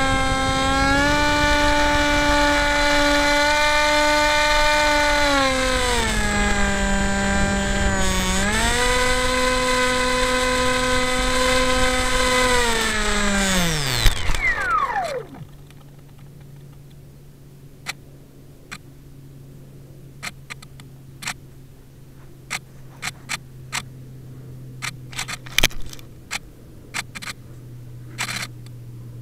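Model plane's electric motor and propeller whining, heard from the onboard camera, the pitch dipping and rising again with the throttle. About fourteen seconds in the motor cuts and the whine falls away as the propeller spins down, with a knock as the plane lands. A low steady hum and scattered clicks follow.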